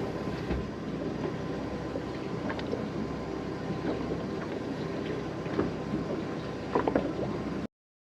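Boat under way: a steady rumble of the motors and water, with a few faint knocks, cutting off suddenly near the end.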